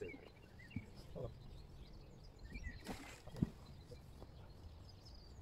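Quiet riverside ambience: low wind rumble on the microphone with a few faint bird chirps, and two short soft thumps, one near the start and a louder one about three and a half seconds in.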